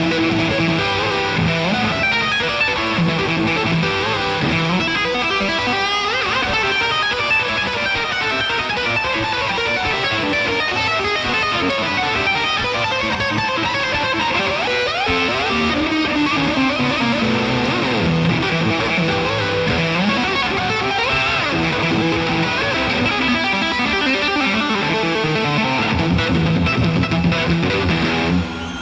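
Amplified electric guitar playing a solo: fast, dense runs of notes, with a slow downward pitch slide about halfway through.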